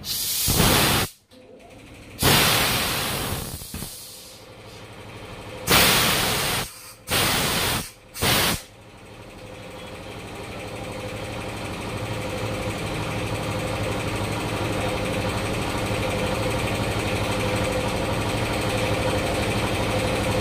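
Compressed air hissing out in five sharp blasts over the first nine seconds, then a motor running steadily and slowly growing louder.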